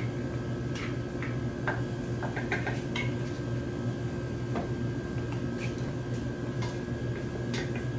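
Steady hum of commercial kitchen machinery, with scattered light clicks and knocks of a bowl and utensils being handled at a stockpot on the stove.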